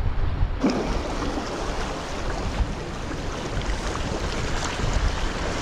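Wind buffeting the microphone over small waves washing against rocks, a steady noisy rush that brightens about half a second in.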